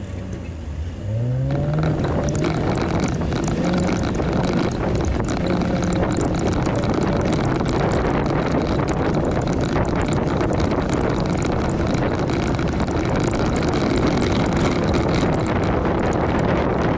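A Jeep's engine revs up about a second in, then keeps pulling steadily, under a constant rumble of tyres working over a rough dirt and rock trail, with scattered clicks and rattles.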